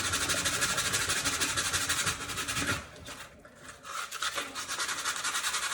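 100-grit sandpaper rubbed by hand over paper-faced foam core in quick, even back-and-forth strokes. It stops briefly about three seconds in, then starts again.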